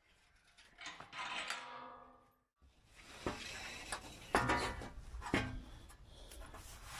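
Aluminium sheet bent by hand in a bench vise, giving a ringing metallic sound about a second in; after that a few sharp knocks and clatter as the bent sheet is handled.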